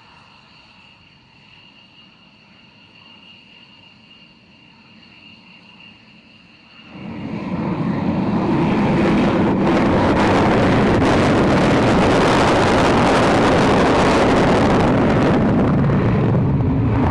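A departing aircraft's engines: at first a faint high steady whine, then about seven seconds in the engine noise rises sharply to a loud, steady rushing sound as the aircraft powers down the runway or passes close by.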